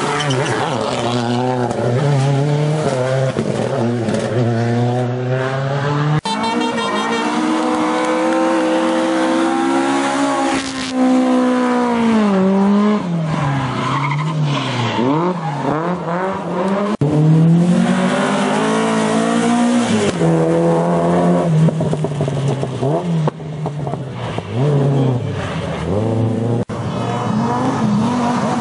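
Rally car engine at full throttle, its pitch climbing in steps through the gears and dropping sharply again and again as the driver lifts off and shifts down.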